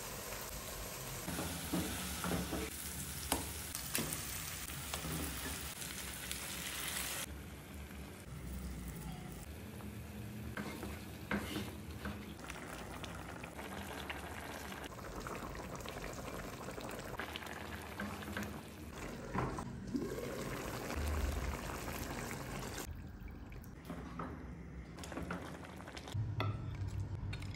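Chili sauce sizzling and simmering in a pan as ingredients are dropped in and stirred with a spatula, with scattered clicks and knocks of the utensil against the pan. The sound changes abruptly a few times.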